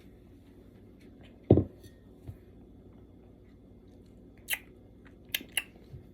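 A person taking a sip of soda, with one loud, short, low gulp about a second and a half in. A few sharp wet lip smacks follow near the end as she tastes it.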